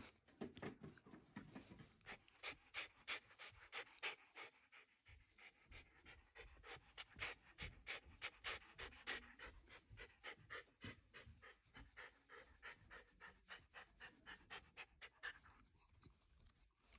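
Shiba Inu panting quietly and quickly with its mouth open, about four short breaths a second.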